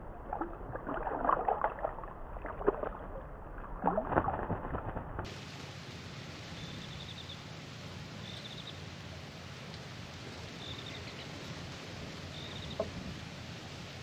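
Water splashing and sloshing in a birdbath as forest kingfishers dive into it, in irregular bursts through the first five seconds. Then a steady background hiss, with a bird's short high trill repeated four times about two seconds apart.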